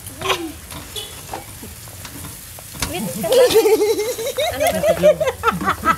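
Food sizzling on a tabletop barbecue grill pan, with metal utensils clicking and scraping against it. From about halfway through, people talk over it, louder than the sizzle.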